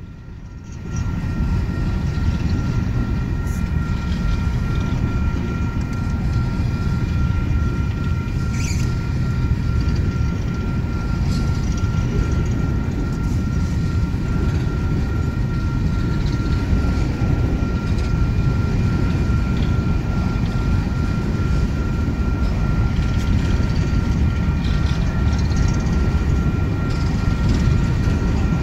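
Coal train of hopper cars rolling past, a steady rumble of wheels on rail with a thin steady high tone held above it.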